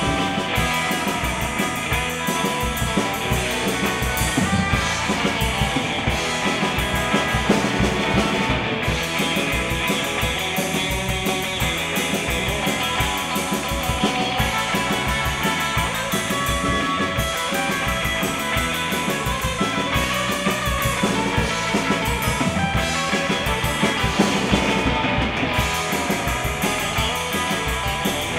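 Rock music with guitar and a drum kit keeping a steady beat.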